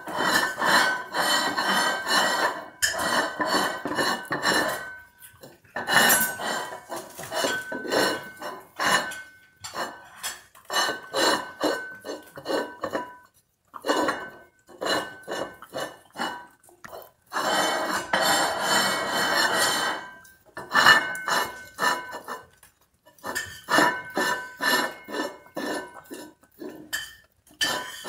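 A Labradoodle licking a ceramic plate clean and shoving it across floor tiles: the plate scrapes and clatters on the tiles with a faint ring, mixed with the dog's licking. It comes in spells of longer scraping and quick runs of short knocks, with brief pauses between.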